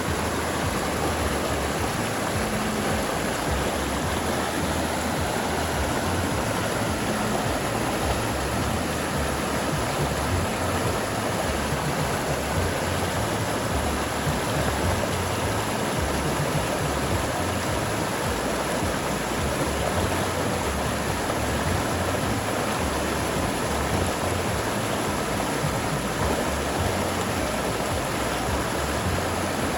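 River water flowing, a steady rushing with no changes.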